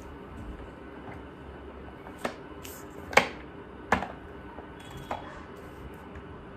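Spin mop being pushed over the floor, its plastic head and handle knocking four times in a few seconds, the loudest knock about three seconds in.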